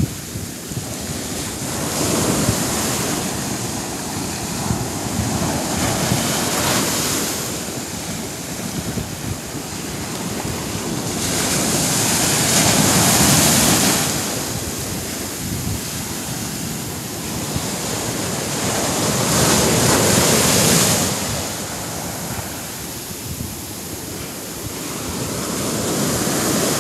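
Ocean surf breaking and washing up a sandy beach, swelling into a louder rush every several seconds as each wave comes in.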